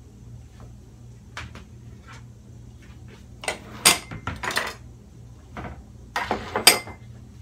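Kitchenware clattering: dishes and a glass blender jar knocked, scraped and set down on a wooden cutting board. There are several scattered knocks, with the loudest clusters about four seconds in and again near the end.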